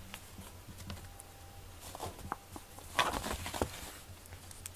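A cat pawing and batting at a string toy on foam floor mats: soft scattered taps and scuffles, with a quicker flurry about three seconds in.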